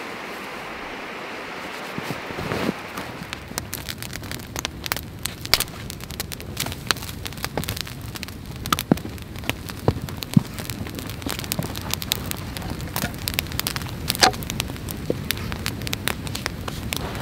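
A steady rushing noise for the first two seconds or so, then a campfire of twigs and split logs crackling, with frequent sharp pops and snaps.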